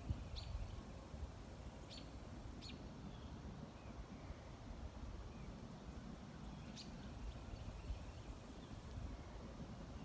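Quiet outdoor pond ambience: a few short, high bird chirps, about four, over a low steady background rumble, with a faint high hiss that comes and goes.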